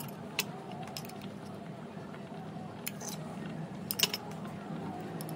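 A metal spoon tapping and clinking against a glass mixing bowl a few times as spoonfuls of ginger and garlic are dropped in, the sharpest tap about four seconds in, over a steady low hum.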